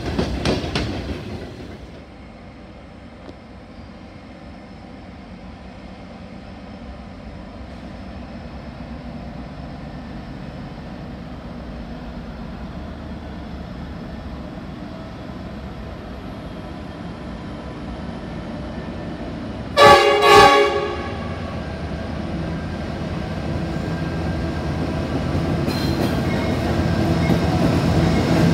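The last wagons of a freight train roll past and fade away in the first two seconds. Then a diesel freight locomotive approaches, its running sound slowly growing; about 20 seconds in it sounds its horn in two short blasts. After the horn the noise builds again as the locomotive reaches the platform and passes.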